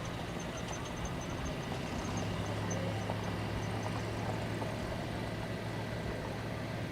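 An engine running steadily with a low hum that grows a little stronger about two seconds in, over a constant noisy background.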